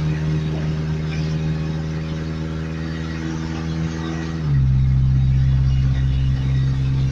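Truck engine running with a steady drone. About four and a half seconds in, its pitch drops a step and it gets louder.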